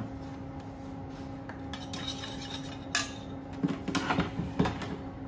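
Metal spoon clinking and scraping against a jar and a small saucepan as chutney is spooned out, with a sharp clink about three seconds in and then a quick run of clinks, over a steady low hum.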